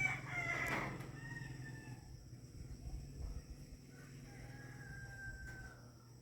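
Roosters crowing faintly: a few long, drawn-out calls, the loudest in the first second.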